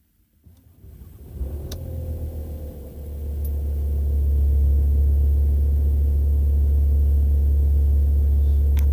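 VW T5 Transporter 2.5 TDI five-cylinder diesel engine being started: brief cranking about half a second in, catching at about a second and a half, then settling into a loud, steady idle.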